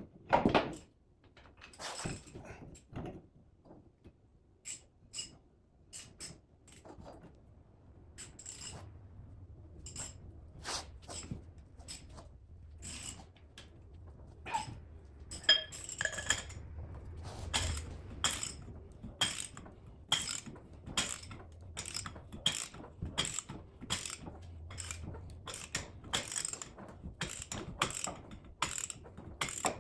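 Repeated sharp metallic clicks from hand-tool work on metal, a few scattered at first, then a steady run of about two a second, with a low hum underneath from about eight seconds in.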